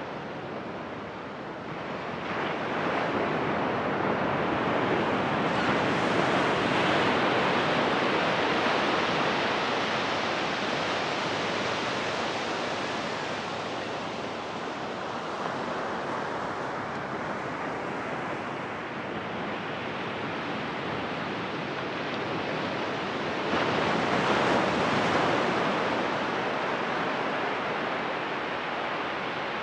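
Ocean surf breaking and washing up the sand in a steady rush of water. It swells louder about two seconds in and again with a bigger wave late on.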